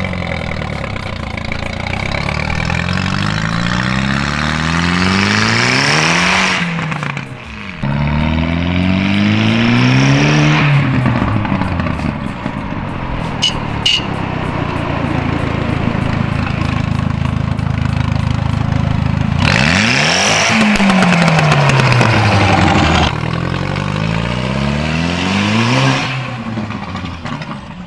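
Turbocharged 1.8-litre four-cylinder engine of an Audi TT accelerating hard, revving up through the gears with a short dip at each shift, then the pitch falls before it revs up once more. It is a launch on which, by the driver's account, the two-step did not engage, giving an odd rev.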